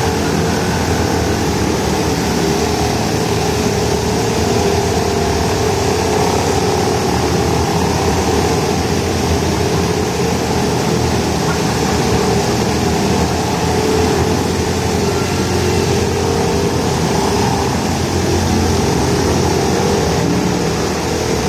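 Small motors of several bumper boats running steadily together, with the water churning around them.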